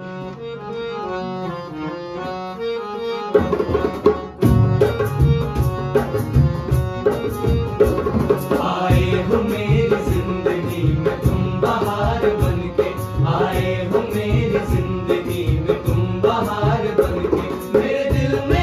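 Acoustic Hindi film-song cover: a harmonium and acoustic guitar intro, joined after about three seconds by tabla, dholak and cajon playing a steady rhythm. Male voices start singing the melody about nine seconds in.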